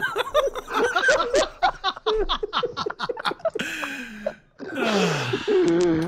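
A young man laughing hard, in quick choppy bursts several times a second, giving way in the last couple of seconds to breathy, wheezing laughs whose pitch slides down.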